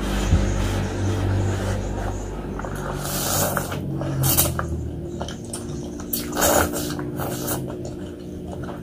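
Close-miked eating sounds of a person chewing spicy noodles and meatballs, wet mouth noises, with a few louder bursts about three to four seconds in and again past six seconds.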